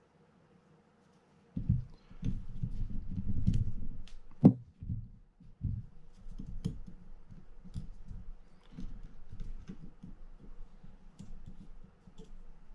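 Hand-work noise on a Shimano TLD 50LRS fishing reel being taken apart: tweezers and small metal parts clicking against the reel, with rubbing and knocking as the reel is handled. It starts about a second and a half in, with one sharper click a little after four seconds, and goes on as scattered light clicks.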